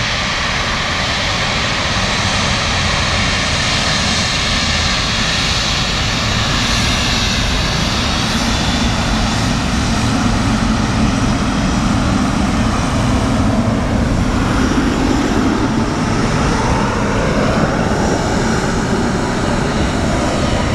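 Boeing 777F freighter's twin General Electric GE90 turbofans running at taxi power as the jet rolls slowly past close by: a steady jet whine over a broad rumble.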